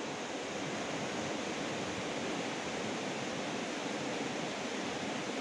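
Swift river current rushing steadily, a continuous noise of turbulent water.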